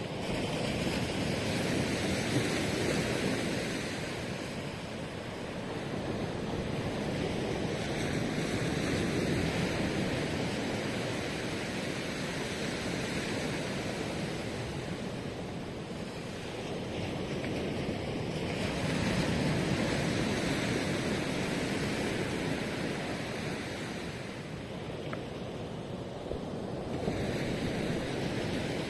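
Ocean surf breaking on a beach, a steady wash of waves that swells and eases every several seconds.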